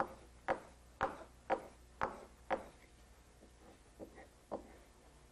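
Carving gouge stroked along a leather strop charged with fine abrasive, polishing the edge to razor sharpness. About two brief strokes a second: six firmer strokes, then several fainter ones from about three and a half seconds in.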